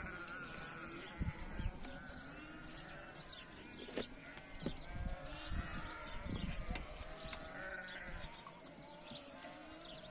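Flock of sheep bleating, many calls overlapping one another, with several dull low thumps among them.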